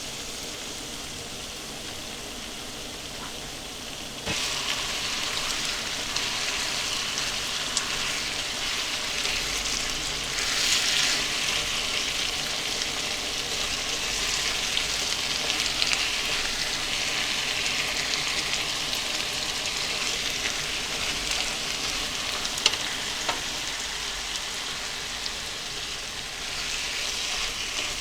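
Food sizzling and crackling in a hot pan on a gas stove, a steady hiss that gets louder about four seconds in.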